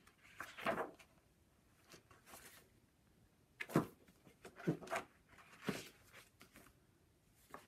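Pages of a paper doll booklet being turned by hand: a series of short paper rustles and flaps, the sharpest about four seconds in.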